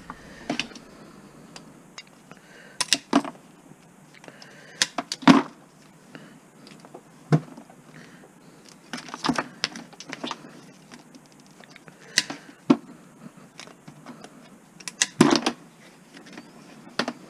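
Cutters snipping Christmas light strands: a dozen or so sharp snaps at uneven intervals as the bulbs are cut off the wire.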